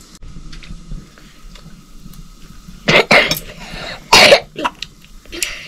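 A person coughing a few times, starting about three seconds in, with the loudest coughs about a second apart.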